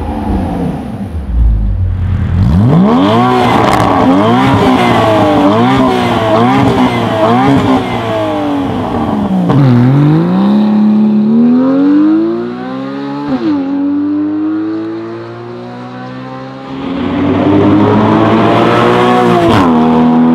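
Porsche 981 Cayman's flat-six through an Armytrix valved exhaust with the valves open. It is blipped in a quick run of about six sharp revs, then pulls hard at full throttle, rising in pitch with sudden drops at the upshifts.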